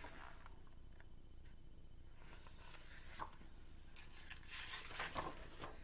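Page of a large picture book being turned: faint paper rustles, a short one about three seconds in and a longer one near the end.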